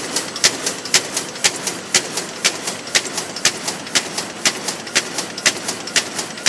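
Dakiou HBJ-D800 paper carton erecting machine running at speed, with a sharp mechanical clack about twice a second as each box is pressed through the forming mould, and fainter clicks between the clacks.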